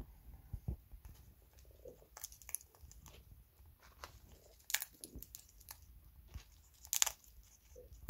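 African grey parrot cracking sunflower seeds and other seed mix with its beak: a scatter of short crunches and clicks, with a few louder cracks, the loudest about seven seconds in. The plastic feed bag crinkles lightly now and then.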